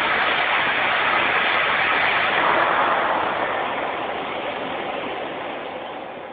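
Steady whirring hiss of an automated parking tower's machinery as its turntable rotates a car. It dies away gradually over the second half as the turntable comes to rest.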